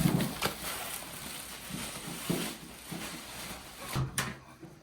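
Handling noise from PC hardware: a sharp knock, then rustling and a few scattered clicks and taps as parts are moved about.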